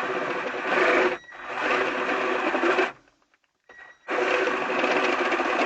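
Cordless drill running under load, drilling a hole through an aluminium panel. It runs about three seconds, stops for about a second, then starts again.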